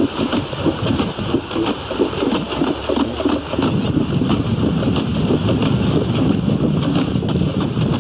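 Wind buffeting the camera microphone, a steady rumbling rush, with light clicks repeating evenly through it.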